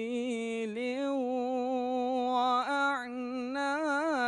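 A solo male voice reciting the Quran in melodic tajwid style, drawing out the word 'nakhīl' (palm trees) in long notes whose pitch wavers and turns.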